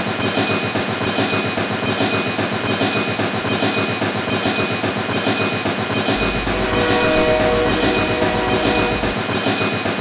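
Train sound: a steady, rhythmic chugging clatter, with a horn note held for about a second and a half around seven seconds in.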